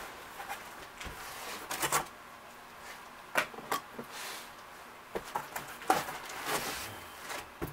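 A cardboard box being handled and opened: a string of short scrapes, rustles and knocks.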